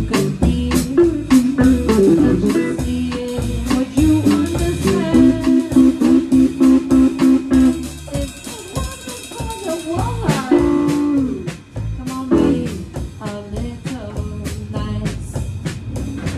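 Live band playing: a guitar holds long notes and slides between them over a drum kit keeping a steady beat.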